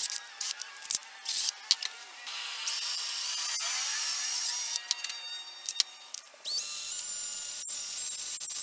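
Cordless drill boring out a small brass carburetor main jet held in a vise, enlarging the jet's hole so it passes more fuel. A few short blips first, then the drill motor whines, rising in pitch about three seconds in, and runs loudest and steadiest near the end.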